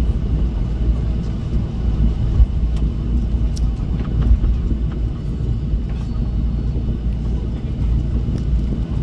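Inside the cabin of a Jeju Air Boeing 737 taxiing: a steady low rumble of the jet engines and the rolling airframe, with a faint steady high tone above it.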